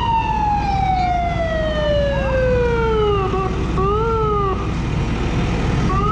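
Fire truck siren winding down in one long falling wail, followed by short rising-and-falling chirps, twice. A steady low engine rumble runs underneath.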